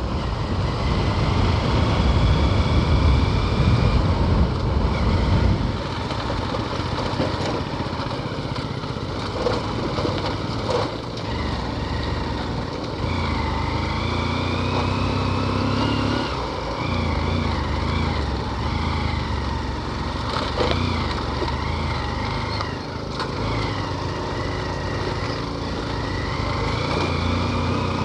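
A two-wheeler's engine running on the move, its pitch rising and falling as the throttle changes.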